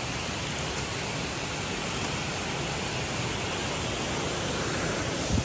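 Steady rushing noise of a waterfall and its stream, even and unbroken, with a brief knock near the end.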